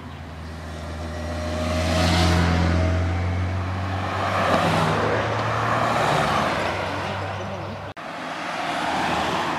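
A motorcycle and then cars passing close by on a road, one after another. Each brings an engine hum and tyre noise that rises and fades as it goes by, the motorcycle's steady engine hum loudest about two seconds in. The sound drops out briefly near the end.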